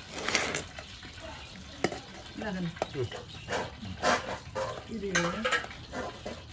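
A serving spoon stirring and scraping in a pot of rice as food is dished out, with short clicks and scrapes and voices in the background.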